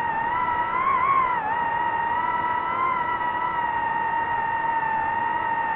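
DJI FPV drone's motors and propellers whining at a steady pitch in flight, dipping and rising slightly about a second in as the throttle changes.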